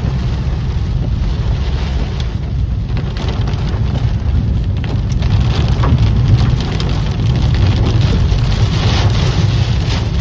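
Loud rain falling in a thunderstorm, with a steady deep rumble underneath.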